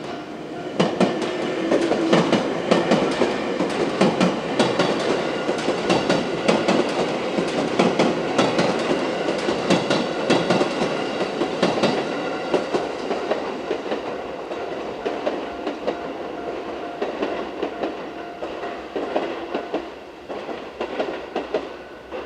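JR West 221 series six-car electric train passing over a level crossing, its wheels clicking rapidly over the rail joints. The clicking is loudest in the first half and fades as the train draws away near the end. A level-crossing bell rings steadily underneath and is clearer again near the end.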